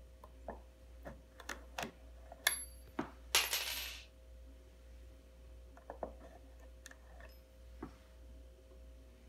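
A steel staple-removal tool clicking against a metal electrical staple driven into a wooden stud as it pries the staple out. The loudest moments are two sharp metallic clinks with a short high ring, about two and a half and three and a half seconds in, the second trailing into a brief scrape. A few lighter clicks follow.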